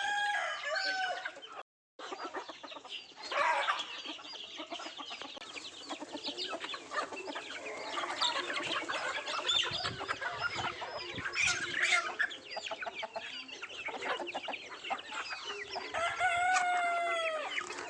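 Country chickens clucking steadily as they eat, among many quick clicks, with a drawn-out call that falls slightly in pitch near the end. The sound drops out briefly about two seconds in.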